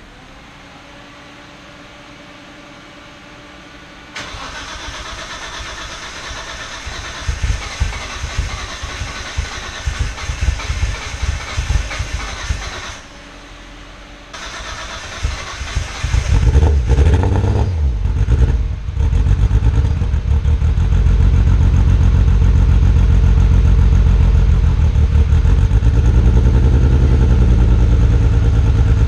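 Nissan R32 Skyline GT-R's twin-turbo straight-six starting with difficulty: it stumbles unevenly, drops out briefly around the middle, then catches and settles into a loud, steady idle for the second half. The engine has a misfire that the owner suspects comes from the tune, since the plugs looked fine.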